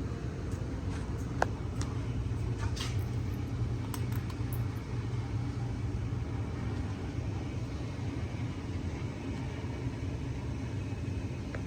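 Sportscast Coca-Cola 44-inch ceiling fan running steadily on high speed, a low motor hum with the rush of moving air, and a few faint clicks in the first few seconds.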